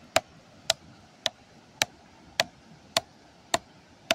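Axe chopping a log for firewood: sharp, evenly spaced strikes, eight of them at a little under two a second.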